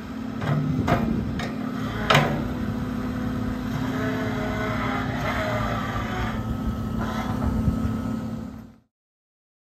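CAT 308 E2 CR mini excavator's diesel engine running, with a few sharp knocks in the first two seconds and a hydraulic whine from about four to six seconds in as the arm and bucket move. The sound cuts off abruptly near the end.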